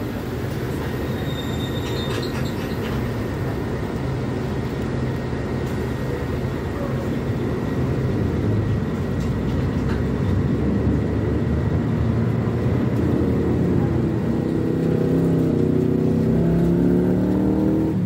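Mercedes-Benz O500U city bus's diesel engine heard from inside the Caio Millenium BRT body, running steadily as the bus travels. Over the last few seconds the engine note climbs as it accelerates, then drops at the end.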